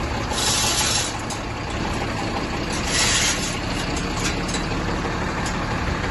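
Heavy truck's diesel engine idling with a steady low rumble, with two short hisses of compressed air, about half a second in and again about three seconds in.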